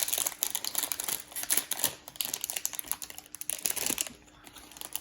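Plastic packaging crinkling and rustling in irregular bursts as hands dig through a case-fan box for its remote, quietening about four seconds in.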